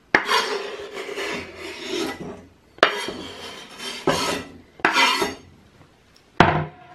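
Chef's knife blade scraping across a wooden cutting board, pushing diced tomatoes off the board into a pot in about four long scrapes, followed by a sharp knock near the end.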